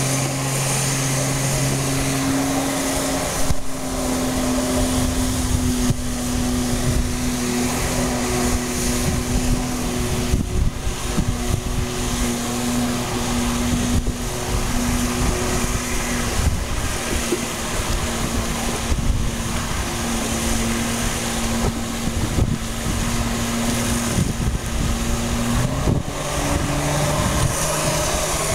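Water jetpack's floating engine-driven pump unit running steadily, its drone shifting in pitch about three seconds in and again near the end as the thrust changes. Over it is the constant hiss of the water jets spraying down onto the lake, with wind buffeting the microphone.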